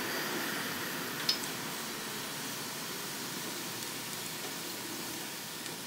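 Lamb ribs sizzling in the hot basket of a Ninja Foodi Grill air fryer: a steady hiss that eases off slightly, with one light click about a second in.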